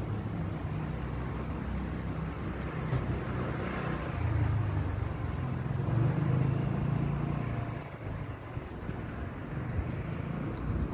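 Steady low outdoor rumble with no distinct tones, swelling about four and six seconds in and easing near eight seconds.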